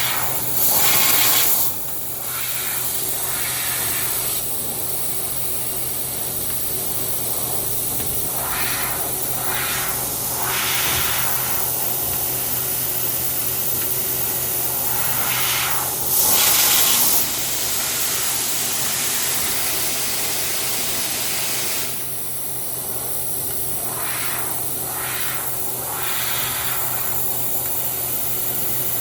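CNC turret punch machine with a laser cutting head running: a steady machine hum and high whine under hissing air that swells and fades in stretches, with two louder one-second blasts of hiss, one near the start and one about halfway through.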